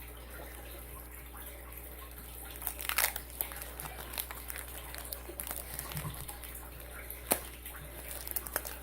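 Foil Pokémon booster pack wrapper crinkling and tearing as it is opened by hand, with a louder stretch of crackling about three seconds in and a sharp click a little over seven seconds in.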